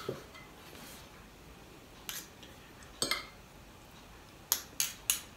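Metal spoon and fork clinking and scraping against a ceramic plate of rice: a few separate light clinks, then three in quick succession near the end.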